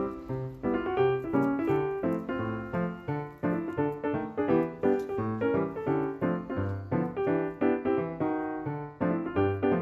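Background piano music with a steady rhythm of repeated notes over a bass line.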